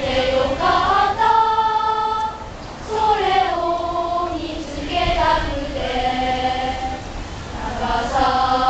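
A group of young schoolchildren singing a song together in unison, in long held notes that slide from pitch to pitch.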